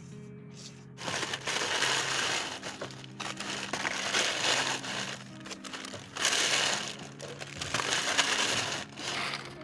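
Loud gritty crunching noise in four bursts of one to two seconds, starting about a second in, over background music.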